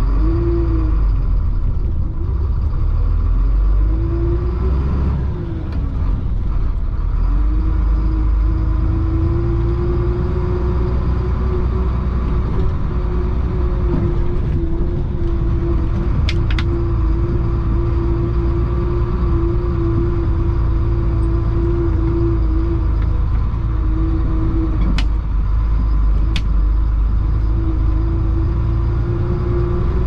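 Chenglong concrete mixer truck's diesel engine running under load as the truck drives off, heard from inside the cab: a low rumble whose pitch rises and falls several times over the first seven seconds or so, then holds steady. A few sharp clicks come after the middle and again later.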